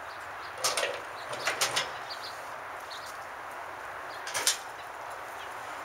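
A few short scrapes and knocks as an aluminium Grumman canoe is hoisted overhead and settled onto a man's shoulders: two brief bursts in the first two seconds and one more a little past the middle.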